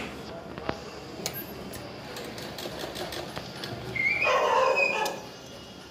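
A few sharp snips of scissors cutting thread in the first second and a half, then, about four seconds in, a louder call lasting about a second whose pitch rises slightly before it stops.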